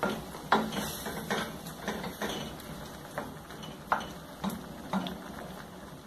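Wooden spoon stirring wet ground beef in a stainless steel pot, knocking and scraping against the pot at an uneven pace of about two knocks a second.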